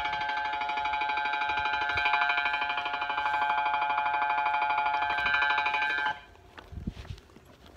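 Electronic warning chime at a railway station, a steady pulsing tone cluster sounding as a train approaches, then cutting off suddenly about six seconds in.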